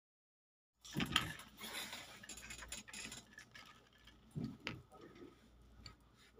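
Dead silence for under a second, then gold bangles giving small irregular metallic clinks and ticks as a handful is picked up and handled, with a couple of soft handling bumps.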